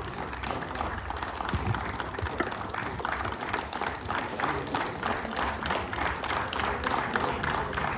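Audience applauding, the claps falling into an even rhythm of about four a second.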